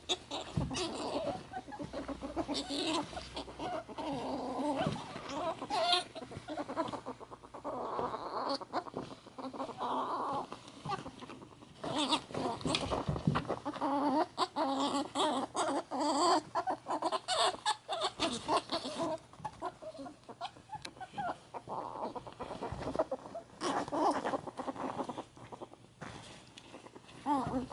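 Ferrets dooking during rough play-wrestling: repeated rapid clucking chuckles ("kukukuku"), the excited play call, mixed with quick clicks and scuffling.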